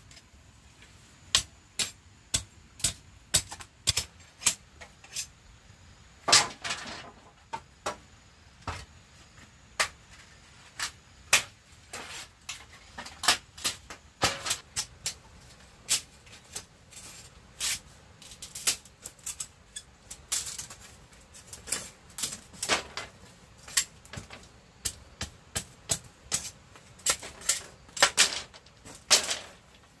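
Irregular sharp knocks and taps from hand-tool work, about one or two a second, with a few short scraping sounds in between.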